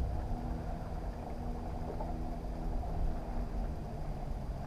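Steady low motor hum from the bass boat, several even tones over a low rumble, unchanging.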